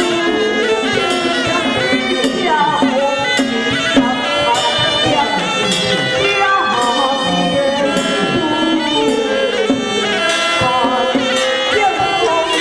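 Traditional Taiwanese temple ritual music: a suona (double-reed shawm) playing a sustained, wavering melody, with occasional struck percussion beats.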